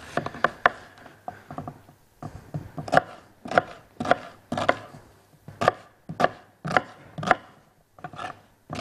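Chef's knife chopping onions into large chunks on a plastic cutting board: a series of sharp knocks, about two a second, each as the blade strikes the board.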